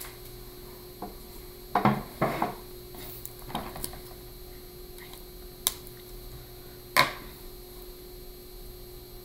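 A few light knocks and clicks in a small room over a steady low hum: a short cluster about two seconds in, then scattered sharp clicks, the last the loudest.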